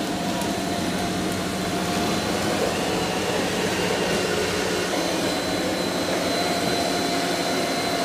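Roborock Q Revo robot vacuum-mop running along a hard floor, vacuuming and mopping at the same time: a steady hum with a thin high whine on top.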